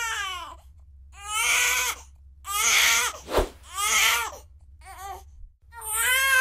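Looped cartoon crying sound effect: a run of high, wailing sobs, each about a second long and falling in pitch, with short gaps between them. A brief sharp click-like sound comes about three and a half seconds in.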